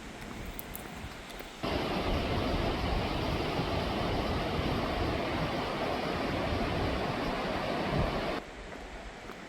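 Rushing river water: a steady rush that cuts in abruptly between two and three seconds in and cuts off just as suddenly about a second before the end.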